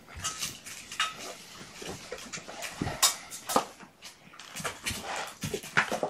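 Young kitten mewing in short repeated cries, mixed with rustling and light clatter.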